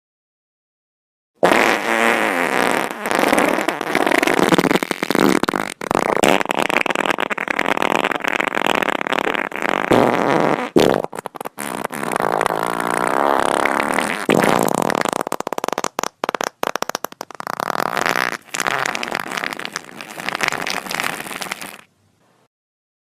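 A long run of fart sound effects, one after another with short breaks between them, starting about a second and a half in and stopping about a second before the end.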